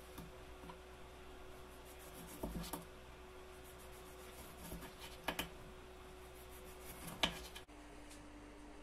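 Light handling sounds as tomato slices are taken from a plastic tub and laid on an open sandwich: a few soft taps and clicks, the sharpest about seven seconds in, over a faint steady hum.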